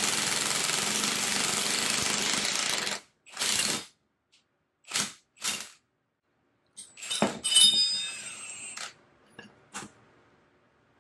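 An impact wrench hammers steadily for about three seconds, then fires three short bursts, driving a bushing press tool to seat a polyurethane suspension bushing in a control arm. Near the end there are a few clicks and a clank of metal tool parts that ring.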